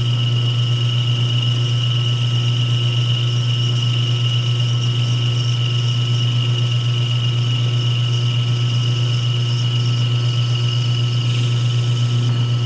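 Metal lathe running steadily, a strong low hum with a high steady whine over it, as a cutting tool is fed by hand into a spinning aluminum stub to turn it down. A brighter hiss comes in near the end.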